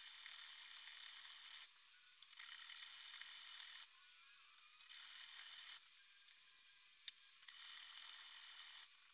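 Flat hand file rasping across the aluminium-alloy backstrap of a Beretta 92FS pistol frame clamped in a vise, cutting flats into the grip. It comes in four bouts of filing, each about a second and a half long, with short pauses between. There is one sharp tap about seven seconds in.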